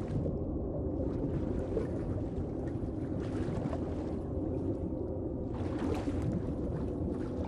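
Water heard from at or just under the surface: a steady, muffled, low churning with the higher sounds cut away. About three-quarters of the way through it opens up into brighter water sloshing.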